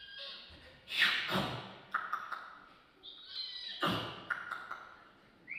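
A mime's mouth-made sound effects: high squeaky pitched noises and two loud sudden hits, about a second in and again near four seconds, followed by a few small clicks.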